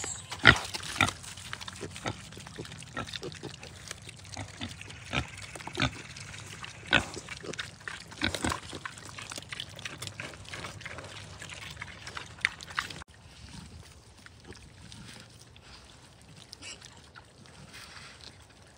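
Sow and piglets eating pumpkin: a run of sharp wet crunches and smacks as they chew, with pig sounds among them. It turns quieter after about thirteen seconds.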